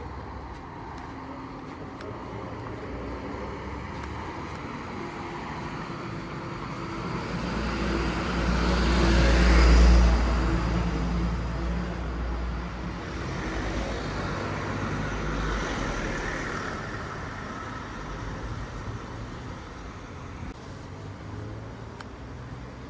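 Cars passing along a street, their engine and tyre noise swelling and fading. One passes close about ten seconds in and is the loudest; a second, quieter pass follows a few seconds later.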